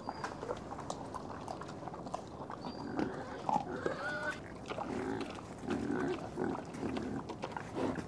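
Wild boars rooting and eating acorns in forest soil: short crunching, snuffling clicks, then a run of low grunts in the second half.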